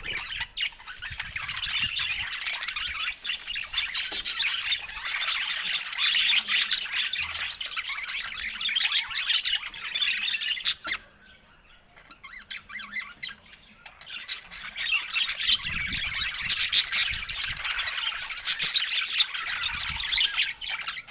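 Budgerigars chattering and squawking in a dense, rapid stream of chirps and warbles, which drops away for a couple of seconds a little past the middle and then starts up again.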